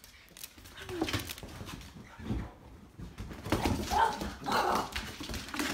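Two dogs, a boxer-lab mix puppy and a cairn terrier-schnauzer mix, play-fighting on a hardwood floor: scuffling and clicking claws with short dog calls, loudest from about three and a half seconds in.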